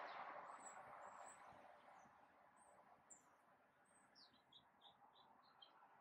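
Faint songbird calls: a few thin, very high chirps, then a quick run of about seven short notes near the end, over faint background noise that fades away in the first couple of seconds.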